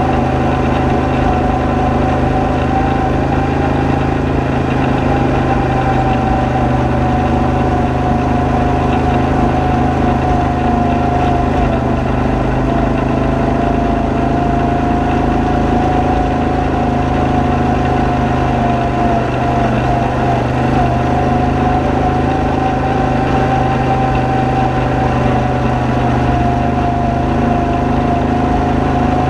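ATV engine running steadily while climbing a gravel road, with a high whine that wavers a little in pitch.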